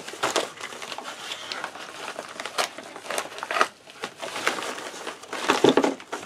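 White padded paper mailing envelope crinkling and rustling in irregular bursts as it is handled, opened and emptied, with a louder burst of rustling near the end.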